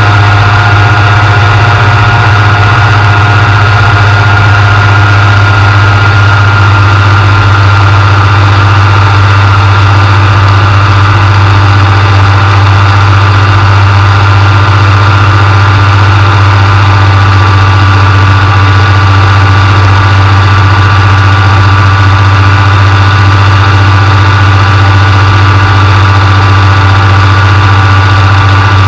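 Engine and propeller of a microlight trike droning steadily in flight: a loud, even hum with a steady higher whine above it.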